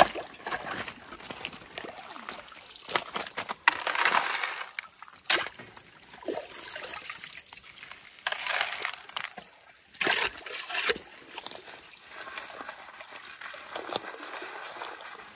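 A small shovel digging into creek gravel and tipping it into a plastic classifier sieve over a gold pan, making scraping and rattling in irregular bursts. Later the pan is dipped into the creek and water sloshes in it.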